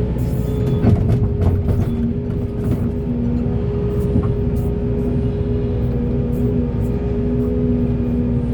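A large hydraulic excavator's diesel engine running steadily under load with a held hydraulic whine. A cluster of knocks and clanks comes about one to two seconds in.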